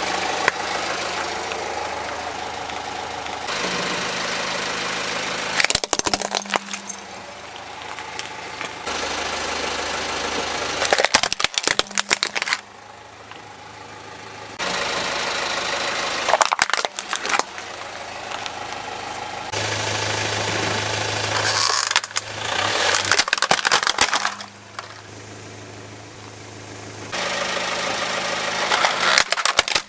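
Car engine idling, broken by about five bursts of loud cracking and snapping as plastic toys are crushed under a car tyre.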